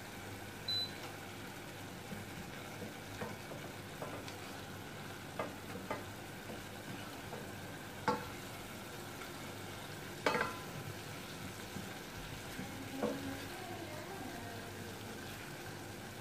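A wooden spoon stirring chopped lobster, clam and celery in a stainless steel saucepan, knocking against the pot now and then over a steady faint sizzle as the ingredients sweat in their liquid.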